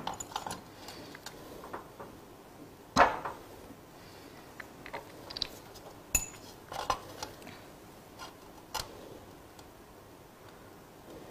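Light clinks and taps of laboratory glassware being handled: a glass stirring rod knocking in a glass beaker and an amber bottle being moved over it. A handful of separate taps, the loudest about three seconds in.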